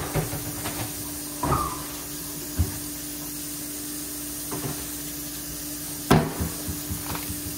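A kitchen fan running with a steady hiss and a low hum, with a few knocks and clunks on top, the loudest right at the start and about six seconds in.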